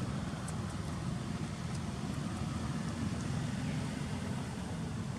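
A steady low rumble of outdoor background noise, with a few faint high clicks.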